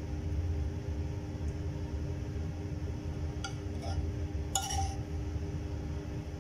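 A metal spoon clinking on a nonstick frying pan while minced pork is scraped out of it: a faint clink past halfway, then a louder, ringing one about a second later. A steady low hum runs underneath.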